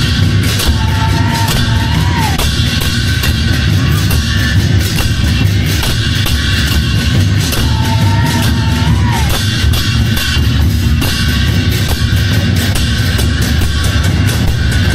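Chinese folk drum troupe playing: big drums beaten in a fast, continuous, driving rhythm with clashing hand cymbals. A short wavering high tone rises over the drumming twice, about a second in and again about eight seconds in.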